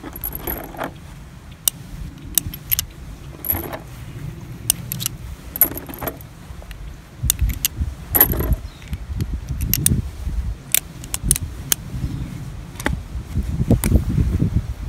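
Pietta single-action revolver being loaded by hand: scattered light metallic clicks and rattles as the cylinder is turned and cartridges are pushed into the chambers through the loading gate.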